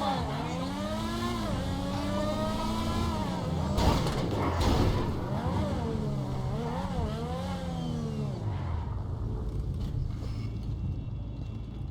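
F1 car engine revving, its pitch climbing and falling again and again, with a louder burst about four seconds in; the revving dies away after about eight seconds, leaving a low rumble.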